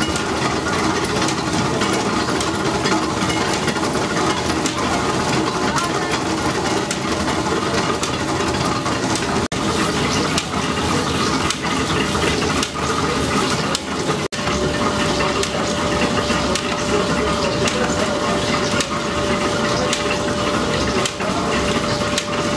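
Flour mill machinery running: roller mill, belt drives and shafting give a dense, steady rattle and rush with light clicking. The sound drops out for an instant about ten seconds in and again about fourteen seconds in, after which a steady hum runs under it.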